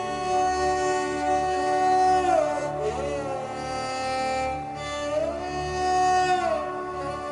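Slow ambient music: long held notes that glide from one pitch to the next, over a low drone.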